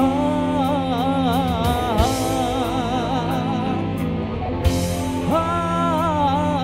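Band music: a wavering melody with vibrato over a steady bass line, with a couple of drum hits.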